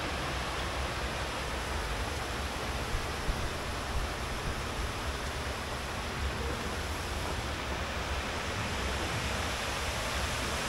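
River water rushing steadily in a channel, an even hiss with a low rumble underneath.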